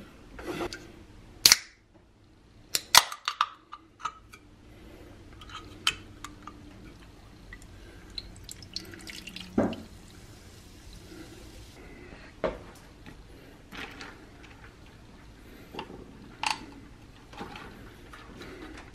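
A soda can and ice in a glass: sharp clicks and clinks, then ginger ale poured fizzing over ice for a few seconds around the middle, and the ice stirred with a straw near the end.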